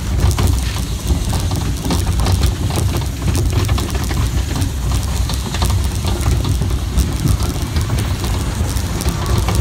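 Roller coaster car rattling along its track, a quick run of clicks and clacks over a steady low rumble.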